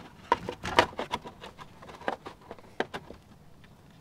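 Plastic fuel injector cover being set back in place over the engine: irregular light clicks and knocks of plastic as it is shifted and pressed down, bunched in the first second, then a few scattered ones.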